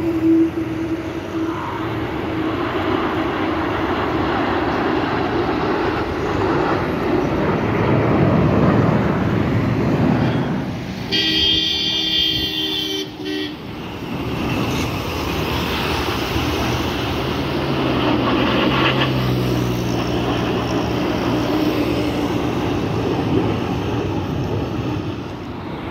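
BAE Hawk jet trainers flying past overhead in formation: a steady jet rush that swells and eases. A horn-like tone sounds for about two seconds near the middle.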